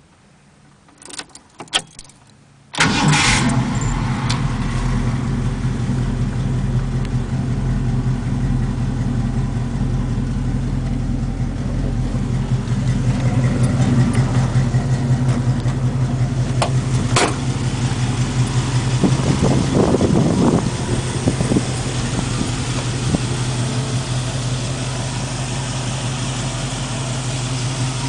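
A few light clicks, then a 351 Windsor V8 with headers and Flowmaster 40-series mufflers fires up abruptly about three seconds in and settles into a steady idle.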